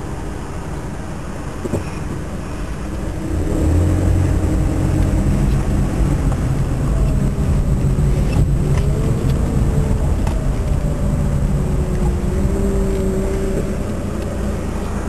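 Car driving: engine and road noise heard from inside the cabin, a steady low rumble that grows louder about three and a half seconds in.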